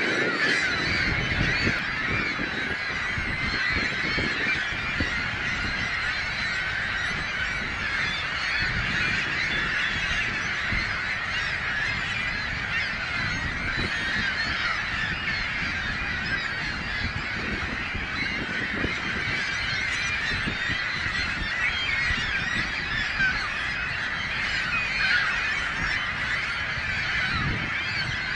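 A large flock of birds calling all at once: a steady din of many overlapping calls.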